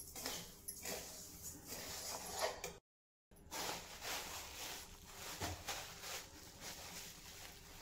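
Coriander seeds scraping and rustling as a spatula stirs them round a steel kadhai during dry roasting. After a brief dead gap about three seconds in, a plastic packet crinkles as it is handled and opened.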